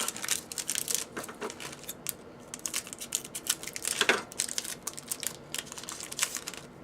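Trading card pack wrappers and cards being handled: crinkling and rustling with quick crackles and clicks, one sharper crackle about four seconds in.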